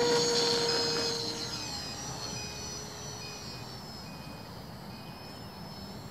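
Electric RC plane's brushless motor and propeller running at full throttle on takeoff: a steady high whine that fades as the plane climbs away. Faint evenly spaced beeps sound through the middle.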